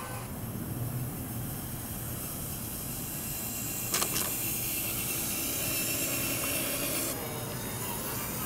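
Traxxas TRX-4 Sport RC crawler driving through grass: a steady hissing run of motor, drivetrain and tyres, with a couple of sharp clicks about four seconds in.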